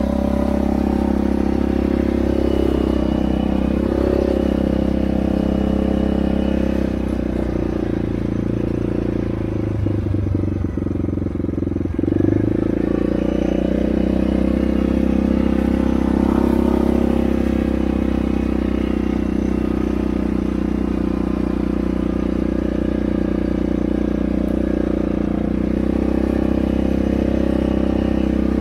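ATV engine running steadily on the move. It eases off briefly around ten seconds in and picks up again about twelve seconds in.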